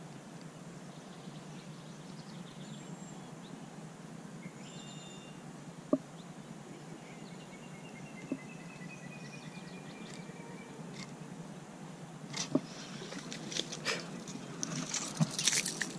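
Birds chirping and trilling over steady outdoor background noise, with a sharp click about six seconds in and another about eight seconds in. Near the end comes a busy run of clicks, rattles and splashy noise as a small sunfish is brought in on a spinning rod and lifted from the water.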